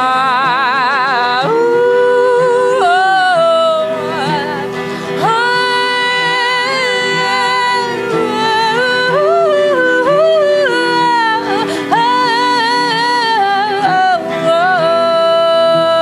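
A woman singing long, sustained notes over guitar accompaniment. The first note wavers with a wide vibrato, and a long steady note is held near the end.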